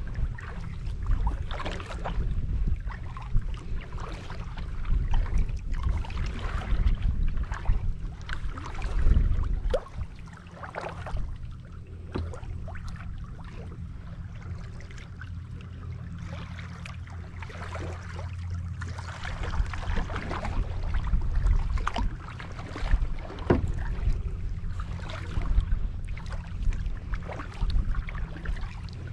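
Kayak paddle dipping and splashing in the water again and again, each stroke a short irregular splash, over a steady low rumble.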